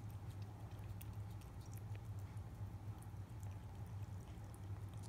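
A cat licking a lickable paste treat from a squeeze tube, heard as faint scattered wet clicks over a steady low hum.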